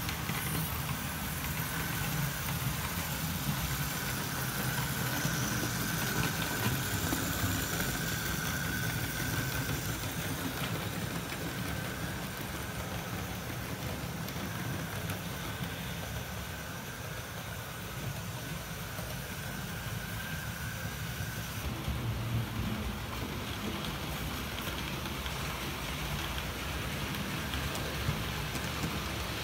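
OO gauge model trains, a Gresley A4 locomotive and its coaches, running along the track with a steady mechanical running noise, low rumble and a faint thin whine that fades out about two-thirds of the way through.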